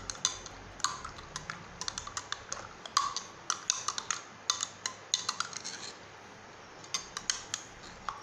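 A teaspoon stirring ginger tea in a glass cup, clinking against the glass in quick, irregular strokes a few times a second, with a short pause about six seconds in.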